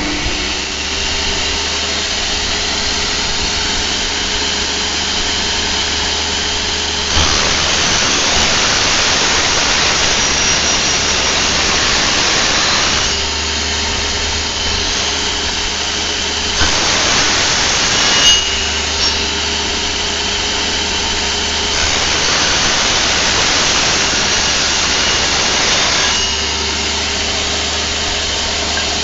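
Table saw motor running steadily, with three louder, hissier stretches (about 7, 17 and 22 seconds in) as the blade cuts through wood.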